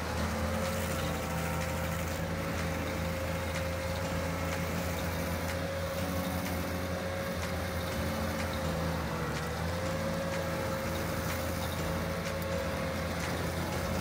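Carlton SP7015 TRX tracked stump grinder running at working speed, its cutter wheel grinding into a stump: a steady engine drone with a steady higher hum over it.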